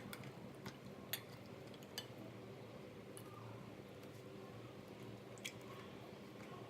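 Faint soft squishes and a few light clinks as pieces of fish are coated with masala paste by hand and set into a bowl, over a low steady hum.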